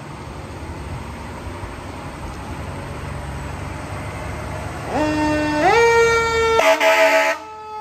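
Pierce aerial ladder fire truck approaching with a low engine rumble; about five seconds in its siren winds up, rising in pitch in two steps and holding, then a loud, harsher blast of its air horns cuts in for under a second near the end.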